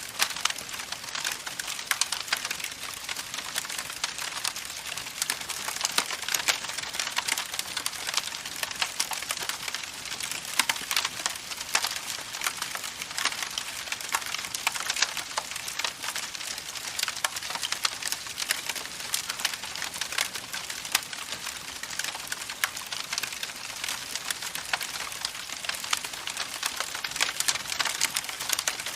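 Campfire crackling: a steady hiss with many irregular sharp pops and snaps from the burning wood.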